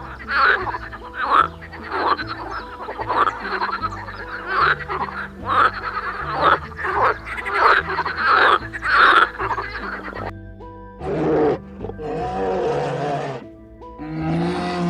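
A rapid run of short animal calls, roughly two a second, over background music with a stepping bass line. Near the end come a few longer calls of a different kind.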